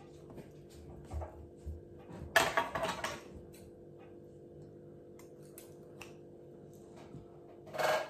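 Handling noises from fishing line and scissors being worked by hand at a table: small scattered clicks, a loud rustle about two and a half seconds in and a shorter one near the end, over a steady low hum.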